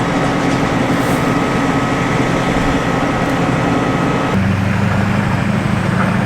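Combine harvester engine running steadily. About four seconds in, the sound switches abruptly to a different, lower-pitched steady engine note.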